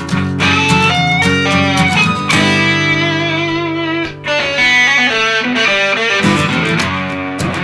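Rock band playing an instrumental passage led by electric guitar: high held lead notes that bend and waver, over steady low guitar and bass notes, with a few sharp drum hits near the start.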